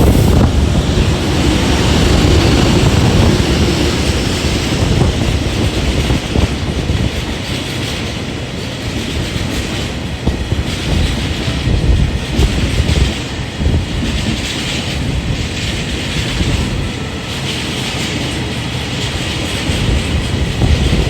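A freight train of empty Taki oil tank wagons, hauled by an EH200 electric locomotive, rolling past. Its wheels run on the rails with a steady, loud rumble, and a repeated clatter comes as the wagons' wheels cross the rail joints.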